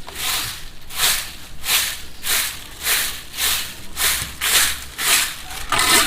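A broom sweeping fallen leaves across the ground in steady rhythmic strokes, about one and a half a second, with a slightly louder stroke near the end.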